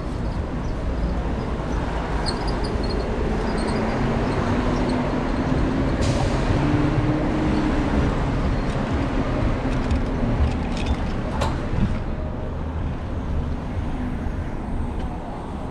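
Street traffic: a steady rumble of vehicles passing, with a larger engine swelling and fading in the middle.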